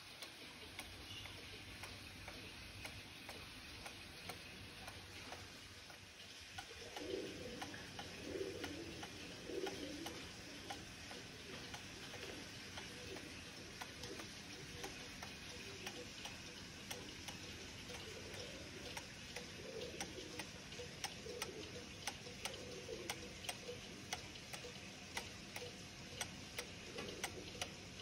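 Antique wooden-plate cuckoo clock, about 170 years old, ticking steadily. From about seven seconds in, its bellows give repeated low cuckoo calls over the ticking.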